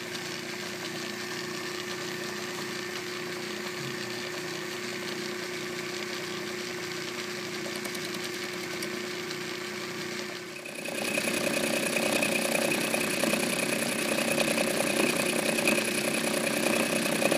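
Atlas metal lathe running, its motor and belt drive spinning a three-jaw chuck with a steady hum. About ten seconds in the sound grows louder and a higher steady whine joins it, as a boring bar is fed in to bore out steel shims clamped in the chuck jaws.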